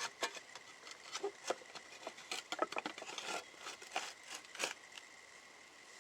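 Scraping and scooping of damp wood ash inside a brick kiln firebox: irregular scratchy scrapes and clinks that stop about five seconds in.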